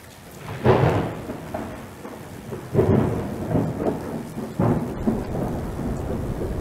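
Rain falling steadily, with three rolls of thunder about two seconds apart.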